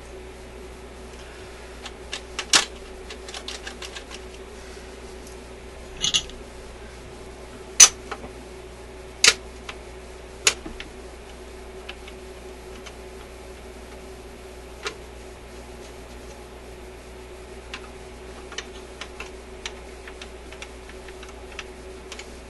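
Metal clicks and snaps from hands working the parts of a record changer mechanism, refitting its clips and moving its levers. The sharpest snaps come about eight and nine seconds in, with lighter ticks before and after and a steady low hum underneath.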